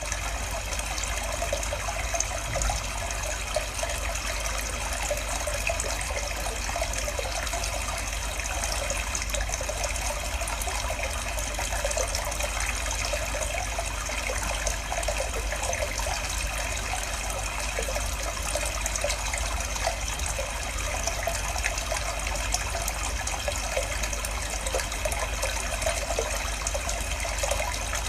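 Mountain stream water flowing steadily, an even rushing with a low rumble underneath.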